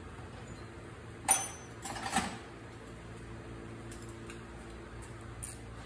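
Small metal parts and a hand tool being handled: one sharp click a little over a second in, a short clatter of clicks about a second later, then a few faint ticks.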